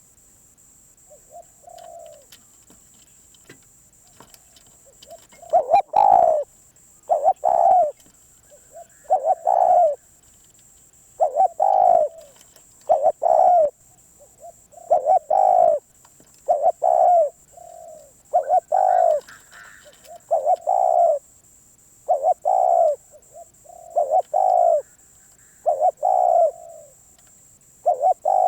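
Spotted dove cooing: a few soft coos at first, then from about five seconds in a long run of loud, repeated cooing phrases with short pauses between.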